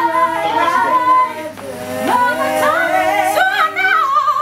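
A female lead singer and backing vocalists singing a gospel-style song in harmony, several voices holding notes together, with the voices climbing higher in the last second or so.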